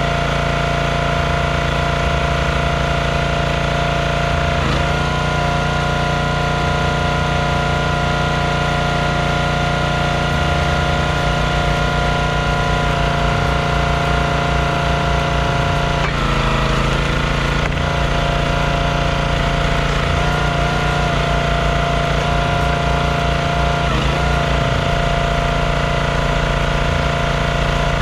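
Small gas engine of a Performance Built log splitter running steadily, its note shifting briefly about three times as logs are split.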